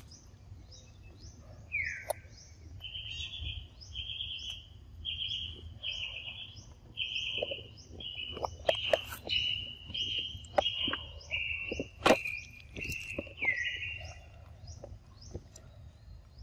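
A bird calling over and over, a short clear note about once a second, opened and closed by a downward-sliding note, with a fainter high chirping repeating about twice a second behind it. Scattered sharp clicks and smacks from macaques chewing mango, the loudest about twelve seconds in.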